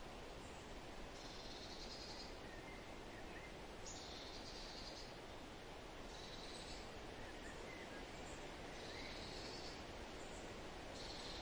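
Steady outdoor hiss with a high, buzzy trilling call from small wildlife repeating five times, about every two and a half seconds, and a few faint short chirps in between.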